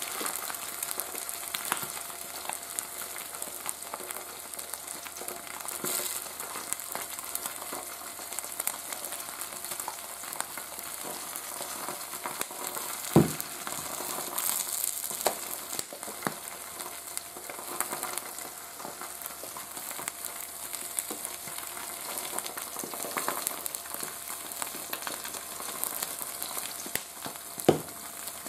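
Two eggs frying on a hot griddle plate, a steady sizzle with light crackling. Two sharp knocks, about halfway through and near the end.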